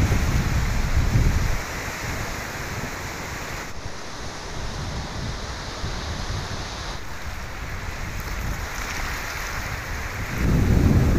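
Sea surf breaking and washing in a steady hiss, with wind buffeting the microphone in heavy low rumbles for the first second and a half and again near the end.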